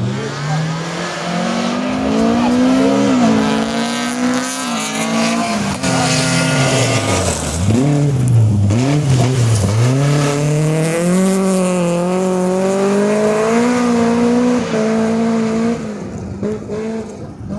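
Rally car engine at full throttle, the pitch climbing through the revs and dropping sharply at gear changes and lifts, with two deep dips in the middle before it pulls hard again. It fades near the end as the car moves away.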